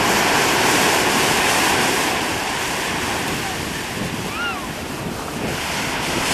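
Wind buffeting the microphone over the steady wash of choppy sea waves, with a short faint high call about four and a half seconds in.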